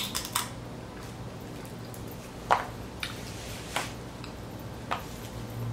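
Eating sounds close to the microphone: scattered wet clicks and smacks of chewing and of handling sauce-covered boiled seafood, the loudest about two and a half seconds in, over a faint steady low hum.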